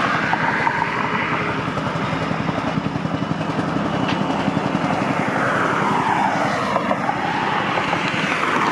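Aircraft engine noise, a steady loud rumble, with a whine that dips in pitch and comes back up in the second half.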